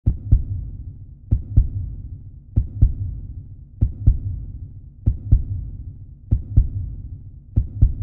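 Heartbeat sound effect: a slow, steady lub-dub of deep double thumps, about one pair every 1.25 seconds (roughly 48 beats a minute), with a low rumble lingering between beats.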